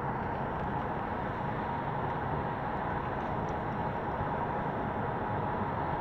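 Steady road and wind noise from a car driving at speed.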